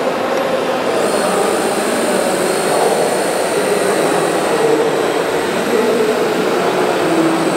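Steady whirring of a large radio-controlled Liebherr 954 excavator model's hydraulic pump as it digs, over the continuous din of a crowded exhibition hall.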